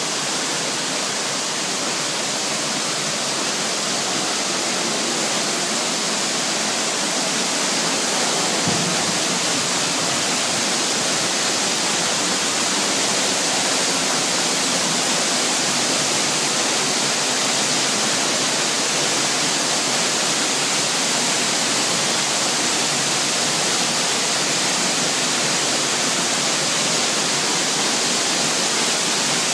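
Small waterfall: a steady, even rush of falling and splashing water.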